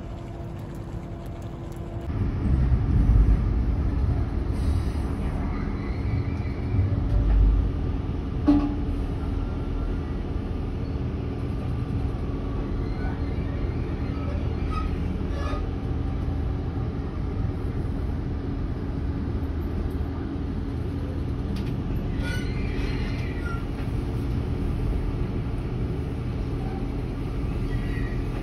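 Ride noise inside a moving train car on an elevated track: a steady low rumble with a steady hum, starting about two seconds in, and a single knock about eight seconds in.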